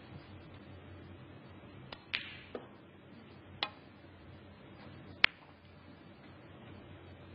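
Snooker balls clicking against each other on the table. There are several sharp clicks between about two and five seconds in, with a duller knock among them, and the loudest click comes near five seconds.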